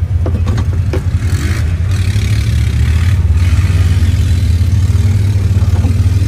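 Off-road vehicle engine running on the trail with a steady low rumble, getting louder about halfway through as it pulls harder.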